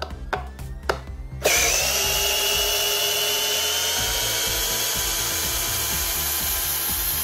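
Aimsak AD414R 14.4 V cordless drill driver, just repaired, driving a long screw into a wooden beam. A few short clicks come first, then about a second and a half in the motor starts and runs steadily under load, its whine rising slowly in pitch.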